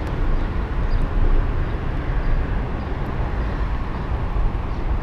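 Steady low rumble of freeway traffic on the Interstate 10 overpasses overhead.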